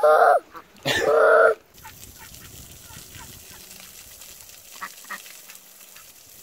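Ducks give two loud quacks in the first second and a half, then a steady low hiss of water spraying from a hose, with a few faint ticks.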